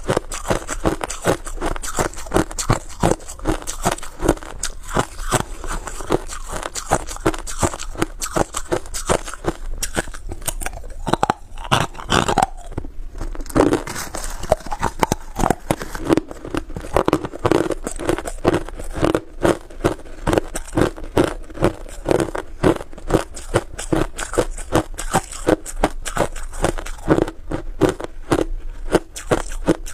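Crushed ice being bitten and chewed close to a clip-on microphone: sharp, rapid crunches, a few each second, running on without a pause.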